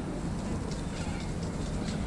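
Steady low rumble of wind on the microphone, with faint voices in the background.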